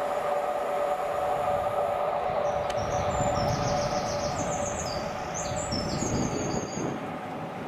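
Class 47 diesel locomotive approaching under power, its Sulzer engine giving a steady whine with a low rumble that grows from about three seconds in as the locomotive draws nearer.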